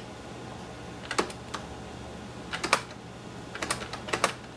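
Irregular keystrokes on the IBM PS/2 Model 25's keyboard: a few sharp key clicks, singly and in quick pairs, spaced about a second apart, over a faint steady low hum.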